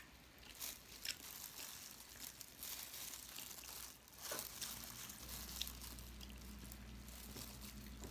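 Close-up eating sounds of a person chewing adobo squid: soft crunches, small clicks and wet mouth noises. A low steady hum comes in about halfway.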